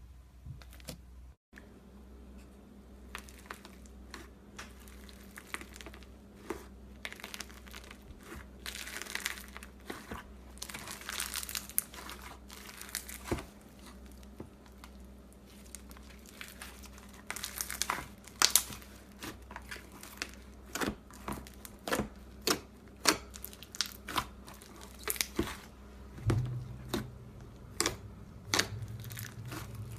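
Slime being squeezed and stretched by hand, making crackling and sharp popping clicks in irregular spurts.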